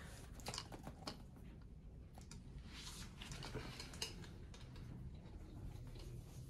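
Faint scattered clicks and light handling noises as a plastic tube of shoe moisturizer and a leather boot are handled, over a low room hiss.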